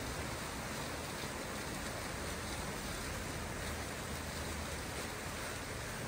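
Water fountain splashing: a steady, even rush of falling water with no breaks.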